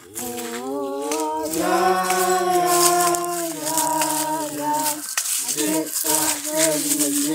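Gospel praise song being sung: the voice glides up through a few notes, holds one long note for about two seconds, then carries on with shorter sung notes. A high hiss runs over the singing.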